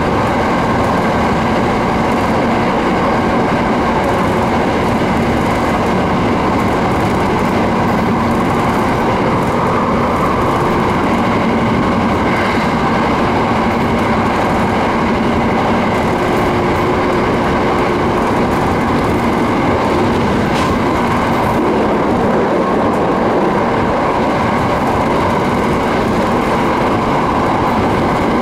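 Steady running noise of a JR East 701 series electric train heard from inside the car: wheels rolling on the rails at speed with a constant rumble.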